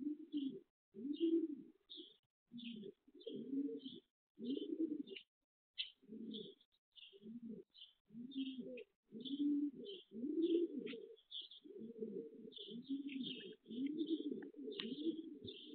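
Racing pigeons cooing over and over in short, low phrases, with small birds chirping quickly and high above them.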